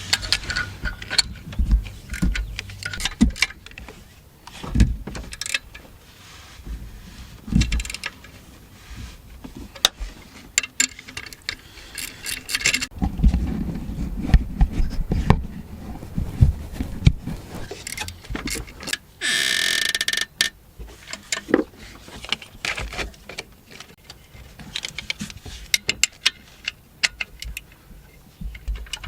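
Hand tools working on the alternator mounting bolts: repeated metallic clicks, clinks and knocks of a socket and wrench against the engine, with a harsh rapid burr of clicking for about a second two-thirds of the way through.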